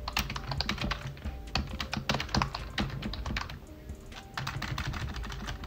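Typing on a computer keyboard: rapid, irregular key clicks with short pauses between runs.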